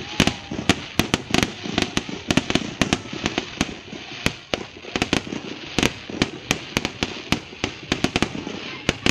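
New Year fireworks going off: a dense, irregular run of sharp cracks and bangs, several a second, over a continuous rumble of further explosions.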